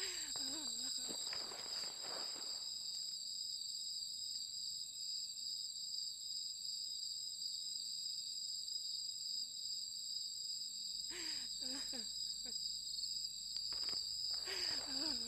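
Crickets chirping at night, a continuous high-pitched trill, with short low voice sounds from a person in the first second and again near the end.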